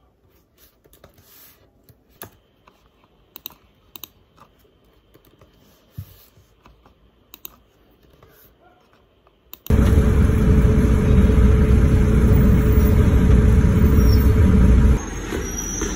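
Laptop keyboard being typed on lightly, with scattered soft key clicks. About ten seconds in, this gives way to a loud, steady low rumble with a faint hum from inside a moving passenger vehicle. The rumble drops lower about a second before the end.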